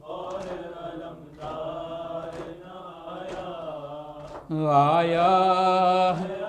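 A man chanting the refrain of an Urdu noha (Muharram lament) in long drawn-out notes, with a louder phrase starting a little past halfway. Sharp chest-beating slaps of maatam land about once a second under the voice.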